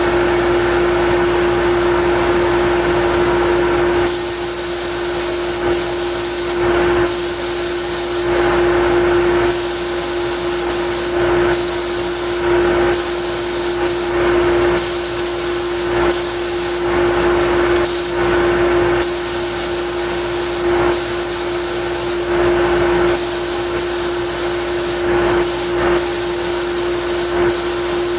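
Paint spray gun hissing in repeated bursts of one to two seconds as the trigger is pulled and released, spraying thinned automotive primer and paint, over a steady mechanical hum underneath.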